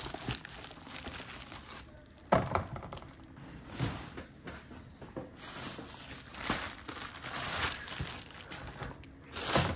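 Leather shoes being handled and set on a display stand: crinkling of the paper stuffed inside them, with a few separate knocks as they are put down.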